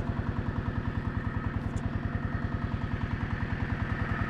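Scout T-12 mini-tractor's engine running steadily, with an even, rapid beat of about ten pulses a second.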